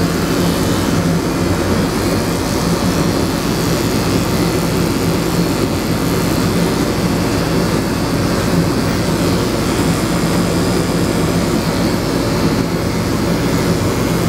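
Electric dog grooming clippers running with a steady buzz as they are worked over a small dog's face and head.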